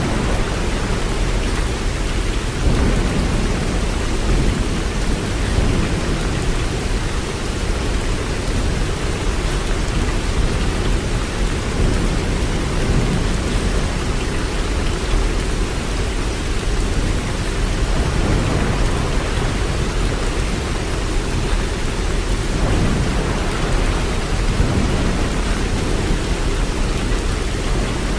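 Waterfall: a steady, loud rush of falling water with a deep rumble that surges now and then.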